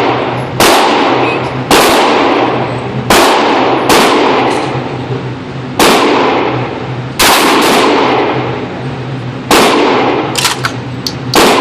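Kel-Tec KSG 12-gauge pump shotgun firing slugs: about eight loud shots, irregularly spaced a second or two apart, each with a long echoing tail. A few smaller sharp clicks come near the end, over a steady low hum.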